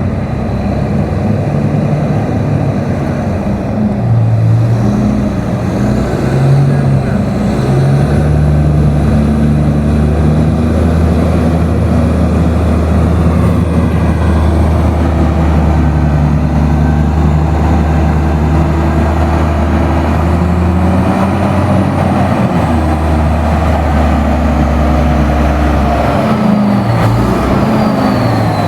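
Large diesel engine of a Caterpillar 777 rigid mining haul truck running steadily and loudly. Its low engine note shifts in pitch in steps, and it is heaviest from about a third of the way in until near the end.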